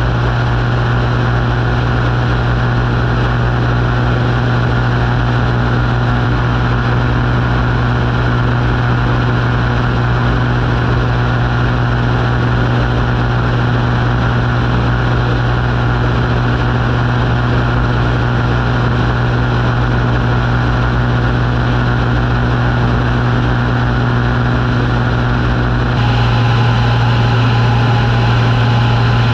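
Light aircraft's piston engine and propeller droning steadily in cruise. About 26 s in the sound shifts abruptly, becoming brighter with new higher tones added.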